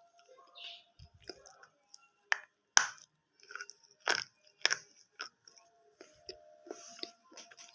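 A person biting and chewing brittle broken pieces with their teeth. About five sharp crunches come in the middle, roughly half a second apart, with quieter crackling chews before and after.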